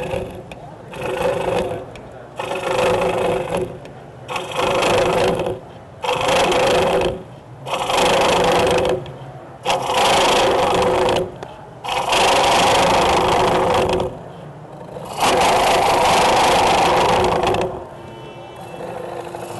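A turning tool cutting the inside of a birch bowl spinning on a wood lathe during rough turning. It takes about eight cutting passes of one to two and a half seconds each, with the lathe running quieter between cuts.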